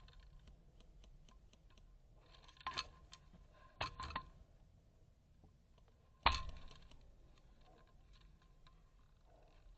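A few scattered sharp clicks and snaps, in small clusters, the loudest about six seconds in, over near silence.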